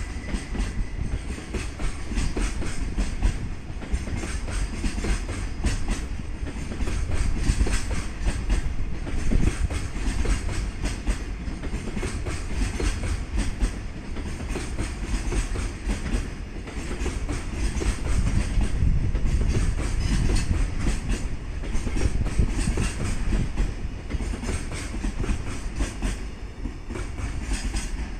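Freight train rolling past at close range: a steady rumble with the wheels clacking over the rail joints as the wagons go by.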